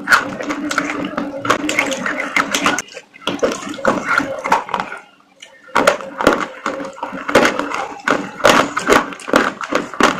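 Crunchy food being chewed close to the microphone: a dense run of crackling crunches, broken by a pause of under a second near the middle.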